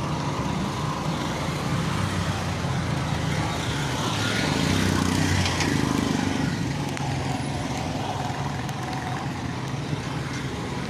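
Busy road traffic passing: vehicle engines and tyre noise, with one vehicle passing close and louder about halfway through.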